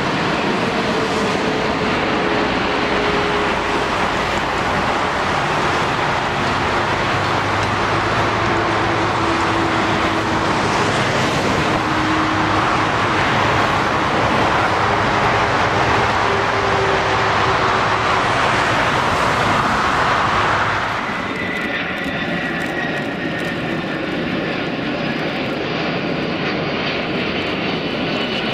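Jet engines of a large cargo airliner passing, a loud steady rush of engine noise with a slowly falling tone. About 21 seconds in it eases a little, and a high whine of several tones comes through.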